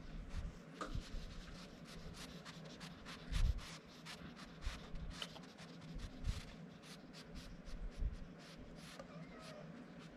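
Repeated soft rubbing and scratching strokes from a hand stroking a kitten's fur, with a few low bumps, the loudest about three and a half seconds in.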